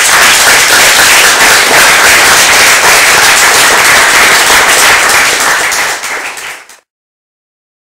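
Audience applauding, loud and dense, cutting off abruptly near the end.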